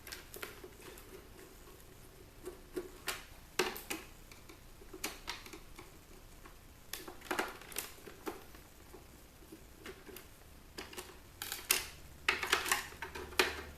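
Irregular clicks and rattles of plastic and circuit-board parts being handled while an electronic device is taken apart, with a denser, louder clatter near the end.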